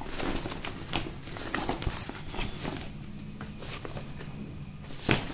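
Fabric of a travel duffel bag rustling as hands open it and handle the inside, with scattered light knocks and a louder knock near the end.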